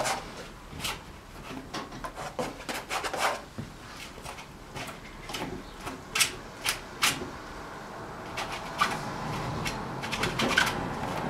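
Paintbrush dabbing and stroking oil paint onto a stretched canvas: irregular scratchy taps and rubs, in quick clusters.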